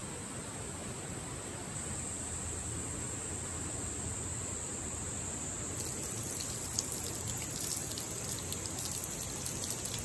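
Tap water running from an outdoor faucet and splashing over a freshly gutted char as it is rinsed by hand, with irregular spattering from about six seconds in.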